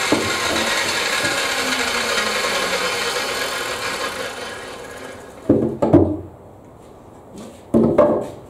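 Radial arm saw motor coasting down after a cut, its whine falling slowly in pitch and fading out over about five seconds. Then two loud knocks of wood, about two seconds apart, as boards are handled.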